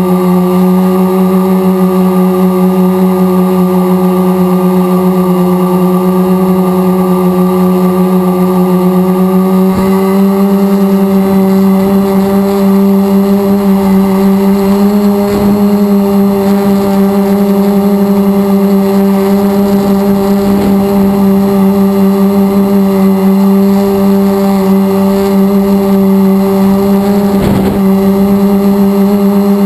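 Multirotor drone's electric motors and propellers giving a loud, steady hum, heard from a camera mounted on the drone's frame. The pitch steps up slightly about ten seconds in, and a few faint short whooshes pass over it.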